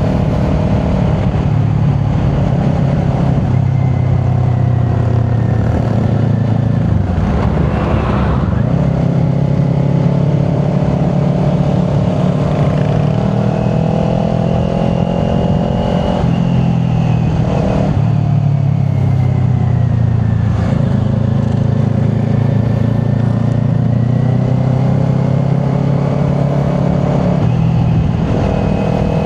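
Kawasaki Ninja 400 parallel-twin engine running through a Yoshimura exhaust while riding, its pitch rising and falling with the throttle. There are short breaks in the engine note about a quarter of the way in and again just past halfway.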